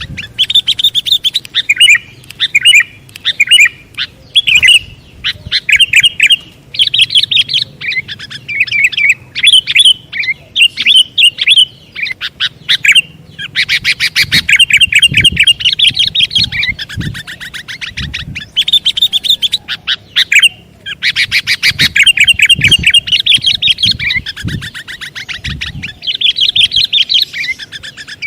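Sooty-headed bulbul (kutilang) song used as a lure call: loud, long runs of rapid chattering notes, broken by brief pauses.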